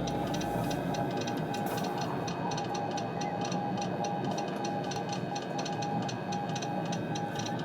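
Morse code: a single beep tone keyed on and off in short and long pulses. It plays over a steady background noise with fast, regular ticking.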